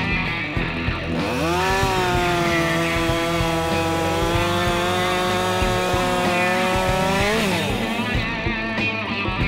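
Chainsaw revving up about a second in and then running at a steady pitch under load as it cuts through a log. Near the end its pitch climbs briefly and then drops back. Background music plays underneath.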